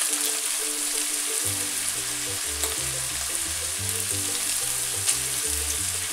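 Sausage and minced pork-and-veal sizzling in a pot over a gas flame as soaked porcini mushrooms are added and stirred in with a wooden spatula, a steady frying hiss.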